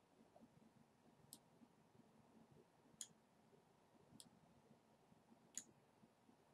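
Four faint computer mouse button clicks, spaced a second or more apart, over near-silent room tone.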